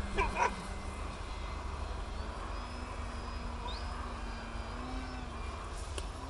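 Radio-controlled model airplane's motor droning steadily, its pitch drifting slightly up and down. Two short, loud wavering cries come right at the start, and birds chirp faintly.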